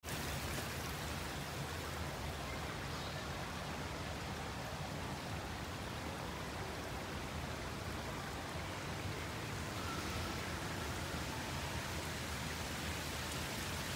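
Steady rush of water flowing over a shallow pebble-bed water feature.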